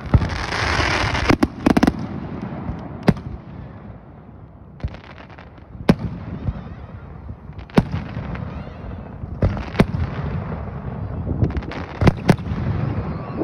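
Aerial firework shells bursting overhead: about nine sharp bangs, spaced a second or two apart with some in quick pairs, over a continuous noisy background.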